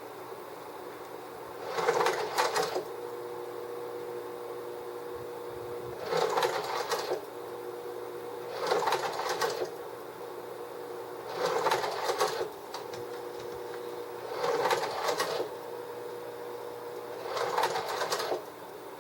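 Sears Whisper Matic III slide projector by GAF cycling through its slides: six mechanical slide-change clatters, each about a second long and roughly every three seconds, over the projector's steady running hum.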